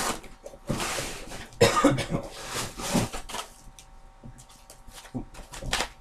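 Packing material being pulled out of a TV's cardboard box: three rustling, scraping rushes in the first few seconds, then a few sharp knocks and clicks near the end.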